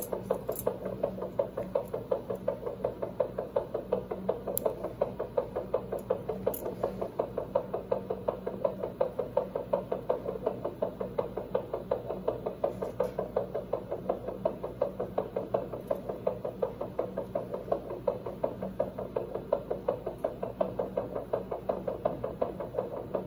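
A fast, steady, even pulsing, a few beats a second, from an anesthesia monitor following the anesthetized hamster's heartbeat.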